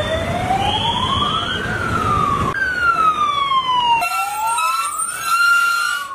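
Fire engine siren wailing, its pitch sliding up and down. It breaks off suddenly twice and comes back at a different pitch.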